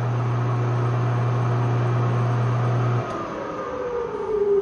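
The Clausing 1300 lathe's 5-horsepower three-phase motor, fed through a PhazPak solid-state phase converter, running in reverse with a steady hum. About three seconds in it is switched off, the hum stops abruptly, and the motor spins down with a whine falling in pitch.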